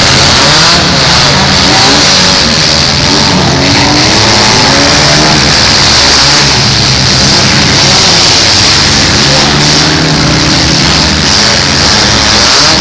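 Several compact cars' engines revving and running hard together in a demolition derby, their pitch rising and falling as the cars push and ram one another.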